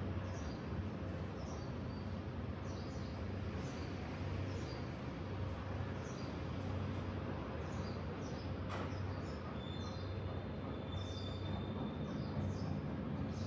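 Small birds chirping again and again over a steady low hum of outdoor background noise, with a single sharp click near the middle.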